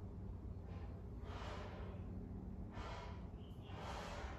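Close, audible breathing: four airy breaths in and out, about a second apart, over a steady low hum.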